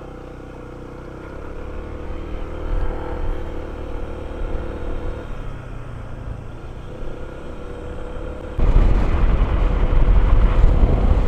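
Honda ADV160 scooter's single-cylinder engine idling, then pulling away and running up through its revs. About eight and a half seconds in, a much louder low rumble suddenly takes over.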